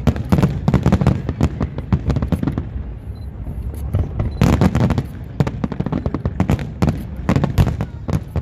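Fireworks salute going off: a rapid, dense string of bangs and crackles over a continuous low rumble, with louder clusters about halfway through and again near the end.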